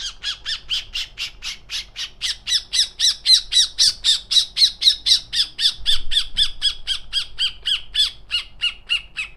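A person imitating a bird: a fast, unbroken run of short, high squawks, each dropping in pitch, about five a second.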